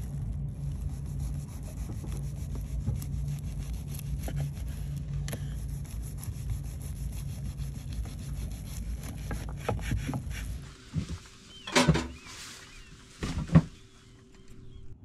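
Knife sawing through a dense seed-and-almond bread on a wooden cutting board, with many small crunching cracks over a steady low hum. Near the end the hum stops and a few sharp knocks come, the last one the loudest.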